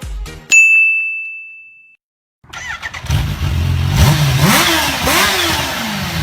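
A single bell-like ding that rings and fades, then, after a moment of silence, a Kawasaki H2R's supercharged inline-four comes in running loud and is revved twice, its pitch climbing and falling back each time.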